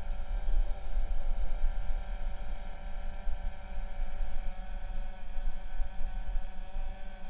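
Steady low hum and rumble, with a few faint steady tones higher up; no speech.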